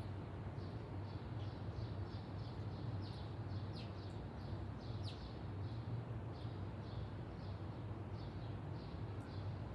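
A small bird chirping over and over, about three short high chirps a second, with a couple of downward-sliding calls in the middle. Beneath it run a steady low hum and a background hiss.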